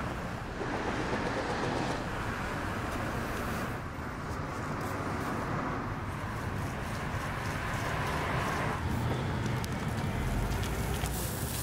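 Steady outdoor city background noise with a low rumble of traffic.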